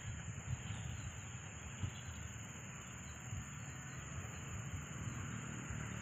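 Steady high-pitched drone of insects, likely crickets, with an uneven low rumble of wind on the microphone.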